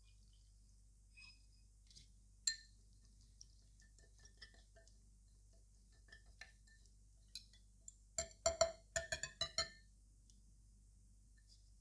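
Metal utensils clinking against a small glass bowl while ground flaxseed and water are mixed. There are a few scattered light taps, then a quick run of rapid clinks for about a second and a half near the end.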